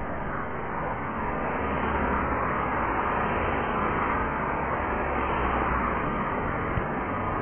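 Road traffic: cars and SUVs passing close by on a multi-lane street, a steady rush of tyres and engines that grows louder about a second in.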